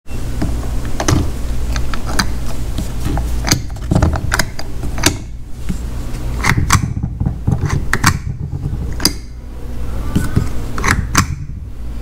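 Hand tools clicking and clanking on metal in irregular strokes while a starter motor is being swapped, over a steady low hum.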